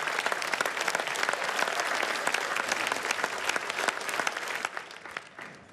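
Studio audience applauding: dense clapping that thins out and fades away near the end.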